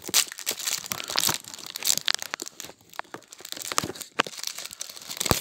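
Crinkly foil and plastic wrapping handled and torn open by hand as a chocolate Easter egg's surprise packet is unwrapped. A dense run of crackles and rustles, with a short lull just before three seconds in.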